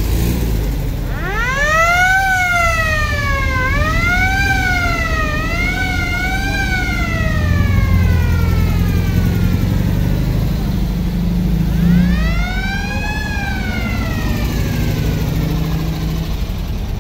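A siren wailing, sliding up and down in pitch several times for about nine seconds, then one more rise and fall, over the low running of passing vintage Volkswagen Beetle engines.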